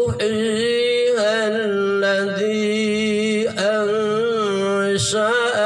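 A man reciting Quran verses in melodic chanted style (tilawah) into a microphone. He holds long, wavering, ornamented notes, broken by short breaths about one, two, three and a half, and five seconds in.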